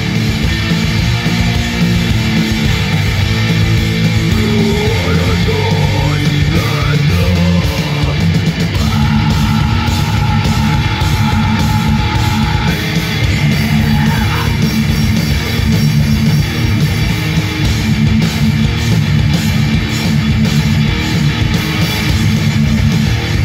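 Live thrash metal band playing: distorted electric guitars, bass guitar and drum kit at full, steady volume.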